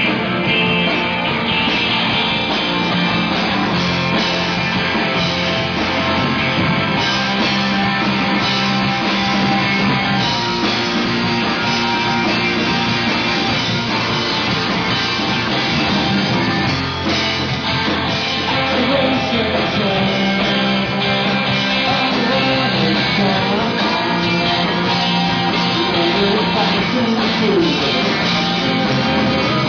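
Rock band playing live, loud and dense, with electric guitar to the fore.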